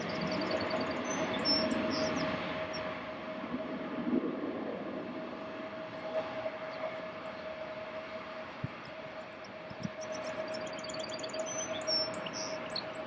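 Small birds chirping in short high runs, about a second in and again near the end, over a steady hum that holds a single even tone.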